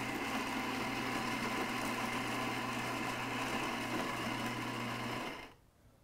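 Gaggia Babila's built-in coffee grinder grinding whole beans for a shot: a steady motor whir over a low hum. It stops abruptly about five and a half seconds in.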